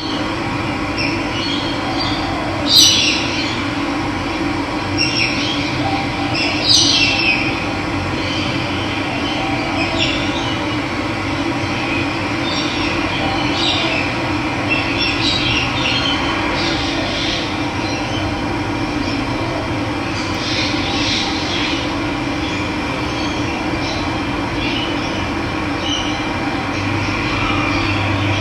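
Steady rush of running water, with birds chirping now and then over it in short calls, the loudest about three seconds in.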